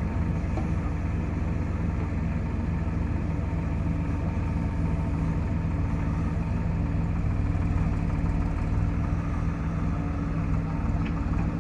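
Heavy diesel engine running steadily at a constant speed, a low even drone.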